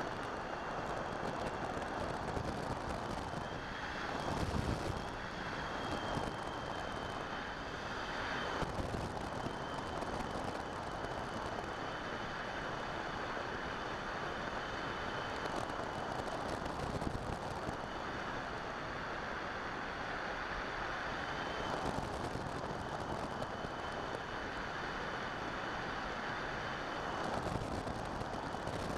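Air rushing over a Skywalker FPV airplane in flight, heard from its onboard camera, with a faint steady high whine above the rush. The rush swells several times, about four seconds in and again around nine, seventeen, twenty-two and twenty-eight seconds.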